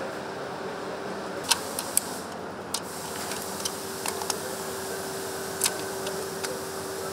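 Steady assembly-hall hum with one droning tone, broken by several sharp clicks and clacks of parts and tools being handled as engine components are fitted by hand.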